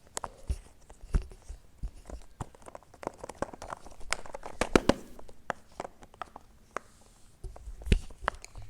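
Silicone bubbles of a jumbo unicorn pop-it fidget toy being pressed by fingers, giving many quick, irregular pops and clicks, thickest in the middle, with a few duller thumps near the end.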